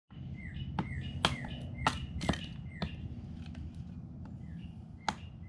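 Wood being split into kindling by hand: a series of sharp knocks, about five in the first three seconds and another near the end.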